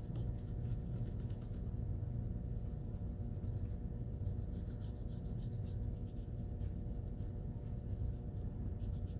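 Hand-held paper pencil tool rubbing and scratching over metal HVAC duct tape as the foil is pressed and stretched around raised letters: light, irregular strokes over a steady low hum.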